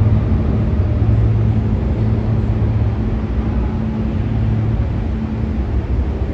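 New York City subway train running through the station: a loud, steady low rumble with a steady hum over it, slowly fading away, the hum dropping out about five seconds in.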